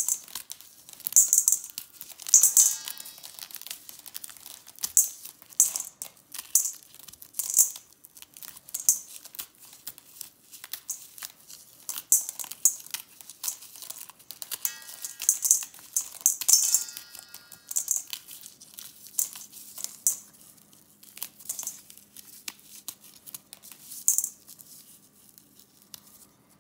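Dried popcorn kernels being pushed off the cob by thumb and falling into a stainless steel bowl: irregular crackling and clicking, with the bowl ringing briefly under some of the heavier falls.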